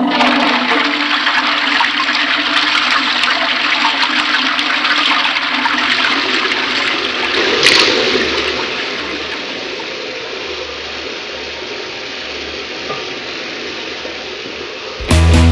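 A toilet flushing: a loud rush of water starts suddenly, then after about eight seconds eases into a quieter steady hiss. Loud rock music cuts in just before the end.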